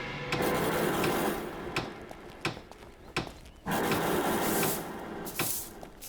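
Renovation work noise: irregular scraping and rasping bursts broken by several sharp knocks.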